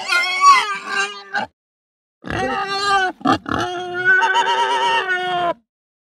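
Pig squealing: a short call, then after a pause a longer call of about three seconds with a brief choppy break in it.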